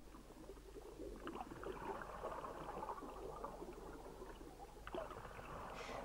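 Faint, steady watery gurgling of underwater ambience, with a low hum beneath it.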